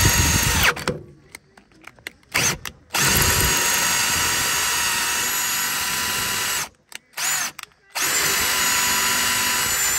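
Cordless drill boring out a broken clutch bolt stuck in a golf cart engine's crankshaft, the bit cutting into a cheap, unhardened bolt. A few short pulls of the trigger come first, then two long steady runs with a brief burst between them.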